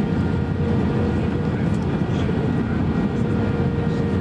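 Steady jet engine and airflow rumble heard inside the passenger cabin of an Airbus A321-231 with IAE V2500 engines, with a faint steady hum and no sudden events.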